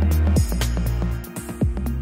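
Electronic background music: deep sustained bass notes under a steady beat of crisp ticks, with a falling bass sweep about one and a half seconds in.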